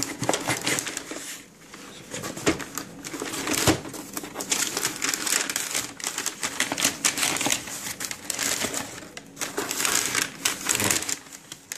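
Packaging being handled and unwrapped: rustling and crinkling of paper and wrapping, with a dense run of small clicks and taps against a cardboard box.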